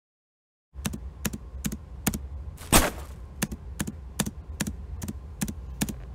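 Footstep sound effects: sharp, even taps about two and a half a second for a minifigure walking, over a low steady hum. One louder, longer rush of noise comes near the middle.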